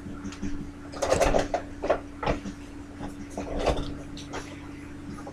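Handling noise close to the microphone: a run of irregular knocks, bumps and rustles, busiest from about one to two and a half seconds in, as someone moves about right in front of the webcam and sits down. A steady low electrical hum runs underneath.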